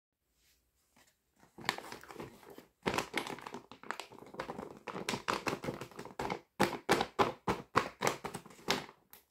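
Clear plastic packaging crinkling as hands press and shift a bag full of small plastic toy kitchen pieces. The crinkles are irregular and begin about a second and a half in.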